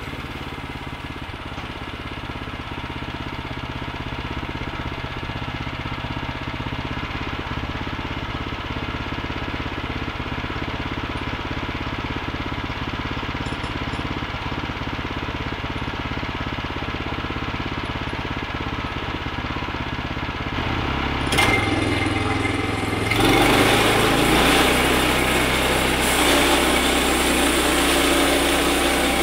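Woodland Mills bandsaw mill's gasoline engine idling steadily; about two-thirds of the way through there is a click and the engine speeds up and runs louder and higher.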